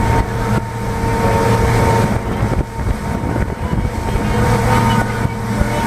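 Motorboat engine running at a steady, even pitch.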